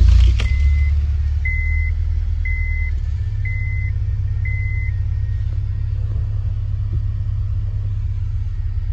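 Honda Civic Type R's K20A2 2.0-litre four-cylinder engine starting and settling into a steady idle on its standard rubber engine mounts, a little higher for the first few seconds. The car's warning chime beeps about once a second, five times, stopping about five seconds in.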